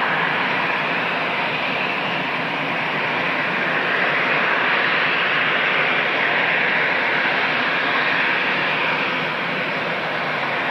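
Jet airliner engines running: a steady rushing noise that swells slightly in the middle.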